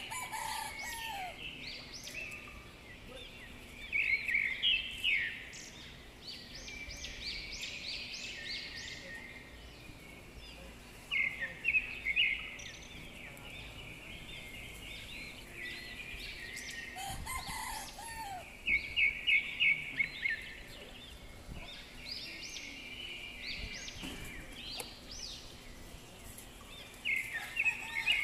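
Birds calling: bursts of quick, high chirping notes every few seconds, with a lower curved call near the start and another about 17 seconds in.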